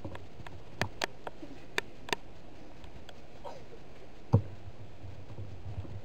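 Several light, sharp clicks in the first two seconds, then one louder thump a little past four seconds in, over a low steady hum.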